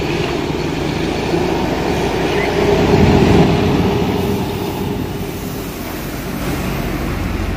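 Road traffic passing close by, a steady rumble that swells as a heavy vehicle goes past about three seconds in, then eases off.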